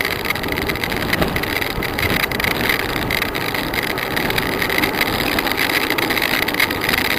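Steady rushing noise of travelling down a mountain road: wind and road noise on a moving camera's microphone, with motorcycle engines mixed in.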